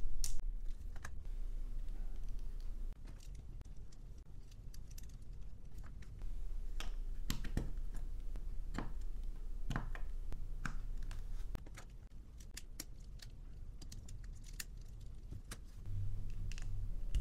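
LEGO Technic plastic parts clicking and knocking as they are handled and pressed together by hand: irregular small clicks, with a quick run of them past the middle.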